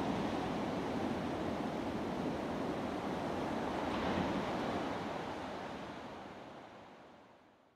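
Sea surf breaking over rocks close to shore: a steady rushing wash of waves that swells slightly about four seconds in, then fades out over the last few seconds.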